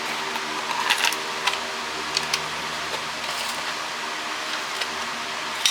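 A few light clicks and taps of small metal scrap pieces being handled and set on a scale, over a steady background hum.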